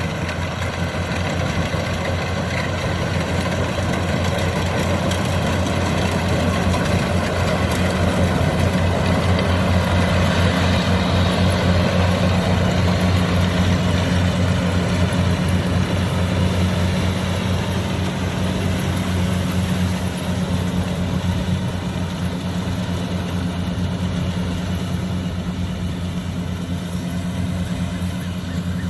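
Diesel engine of a tracked farm machine running steadily. It grows louder over the first several seconds and drops back about two-thirds of the way in.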